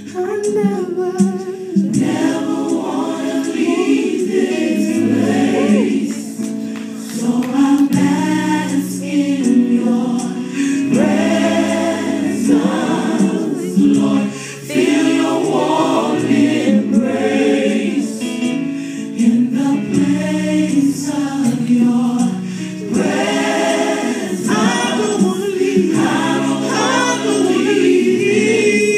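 Choir singing a gospel worship song, loud and continuous, with brief breaths between phrases.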